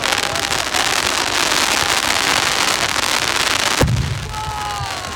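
Fireworks crackling in a dense, continuous rattle, then a deep bang a little under four seconds in.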